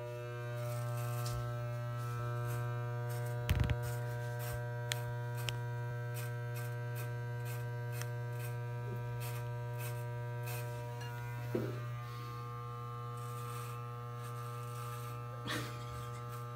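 Corded electric hair clipper buzzing steadily as it cuts hair, with a few light clicks and small knocks, the clearest about three and a half seconds in.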